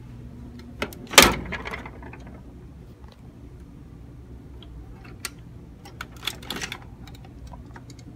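Metal knocks and clicks from handling an open vending machine: one loud knock about a second in that rings briefly, then scattered lighter clicks, over a steady low hum.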